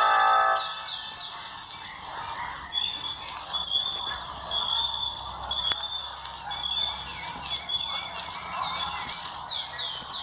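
High-pitched animal calls: many short chirps and repeated notes, with a few quick falling whistles near the start and again near the end.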